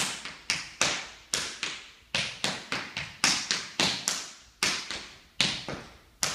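Tap shoes striking a wooden floor in a tap-dance time step: sharp, rhythmic taps, about four a second in uneven groups.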